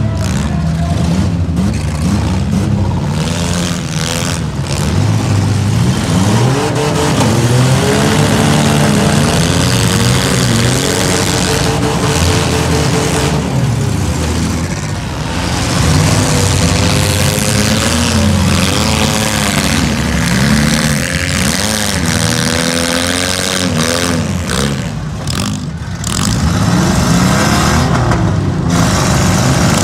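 Several demolition derby cars' engines running hard and revving at once, their pitches rising and falling as the cars push and ram each other.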